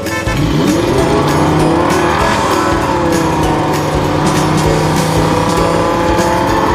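A car engine revving up in pitch during the first second or two, then holding a steady high run, over background music with a regular beat.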